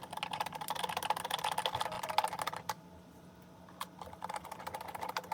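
Rapid, steady clicking as screws are driven in by hand to fix the hose holder to the pressure washer. The clicking stops a little over halfway through, gives a single click, then starts again.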